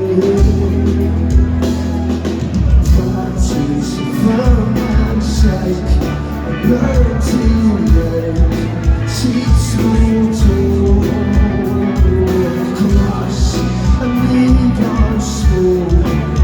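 A rock band playing live, with distorted guitars, heavy bass, a steady drum beat and sung vocals, in a loud full-band passage.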